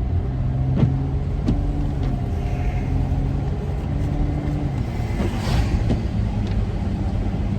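Van driving, heard from inside the cabin: a steady low engine and road rumble with a low hum that fades about two-thirds of the way in. A couple of light knocks early on and a brief swell of hiss about five and a half seconds in.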